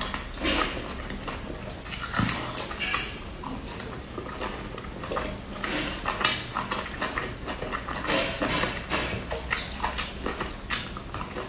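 Close-miked wet chewing, lip-smacking and slurping of someone eating soft steamed pork dumplings dipped in chili sauce, with many irregular sharp smacks.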